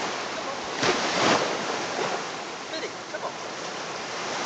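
Small waves washing onto a sandy beach as a steady rush of surf, with one louder surge of water about a second in.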